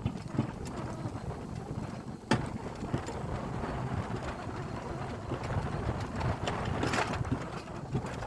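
Alpine coaster sled running down its steel-tube track: a steady rolling rumble of the wheels on the rails, with wind on the microphone. A sharp knock about two seconds in, and a few more clicks near the end.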